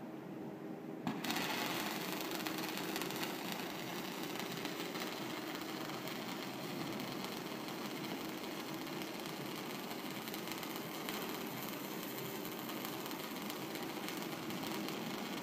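Robotic MIG/MAG welding arc from a Fanuc Arc Mate 120iL cell. It strikes suddenly about a second in and then runs as a steady, fine-grained hiss over the cell's low hum.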